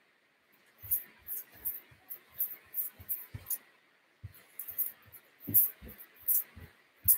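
Sneakered feet landing in quick agility-ladder footwork on a carpeted floor: a run of soft thumps, each with a sharp tick, about three a second, with a short pause about halfway.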